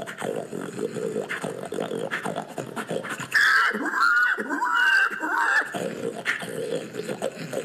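A man imitating pigs into a microphone through cupped hands, as a contest hog call: rapid, choppy low grunting, broken about three and a half seconds in by about two seconds of high, gliding squeals, then grunting again.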